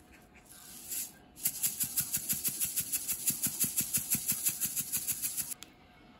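Toasted sesame seeds shaken out of a container over a bowl of noodles: a fast, even rattle of about seven shakes a second for about four seconds that stops suddenly, after a short rustle about a second in.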